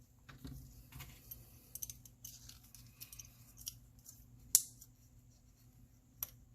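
Small clicks and ticks of a diecast model car's metal and plastic parts being handled and pressed together by hand, with a sharper click about four and a half seconds in and another near the end.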